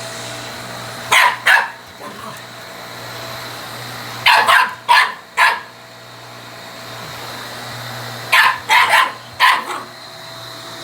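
Shiba Inu barking at a running vacuum cleaner, in three bursts of two to four sharp barks each. The vacuum's steady hum runs underneath.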